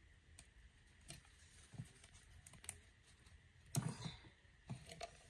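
Faint, scattered clicks and crinkles of a plastic straw being worked in the torn foil seal of a small plastic drink bottle, with a brief cluster of louder taps about four seconds in.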